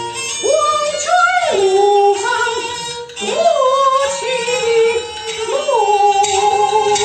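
A woman singing in sliding, ornamented phrases over instrumental music, with a short break in the voice about three seconds in and a long held note near the end.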